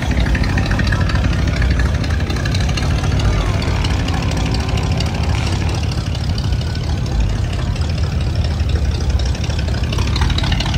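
Car engines idling at a street classic car show, a steady low rumble.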